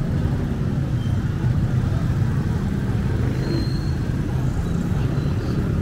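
Street traffic: a steady low drone of small engines from motorcycles and motorized tricycles on the road close by.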